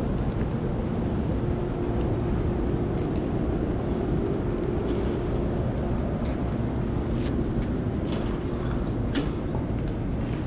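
Steady low rumble of the vehicle-engine kind with a faint steady hum, and a few light clicks in the second half.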